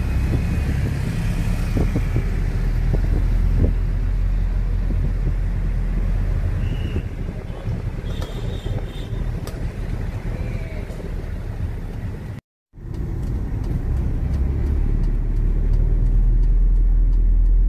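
Low engine rumble and road noise heard from inside a moving vehicle's cabin. The sound cuts out for a moment about two-thirds of the way through, then the rumble returns slightly louder.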